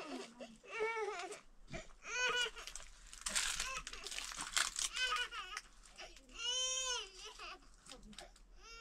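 A series of about five short, high-pitched wailing cries, each rising and falling in pitch. Around the middle there is a brief noisy rustle.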